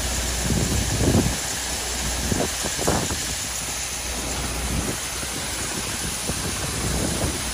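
Steady hissing rush of soybeans pouring from a grain auger into a hopper-bottom trailer, mixed with rain, over a low steady hum. A couple of brief thumps stand out about one and three seconds in.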